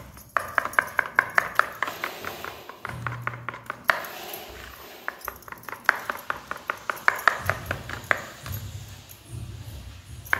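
Steel spoon stirring thin batter in a plastic bowl, clicking against the bowl's side and bottom in quick runs of several taps a second.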